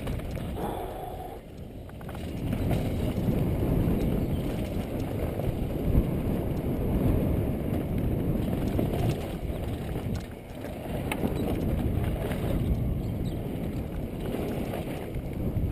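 Downhill mountain bike rolling fast over a gravel and dirt trail: a steady rough rumble of tyres and rattling bike, with sharp knocks from bumps, the strongest about six seconds in. It eases off briefly twice, near the start and about ten seconds in.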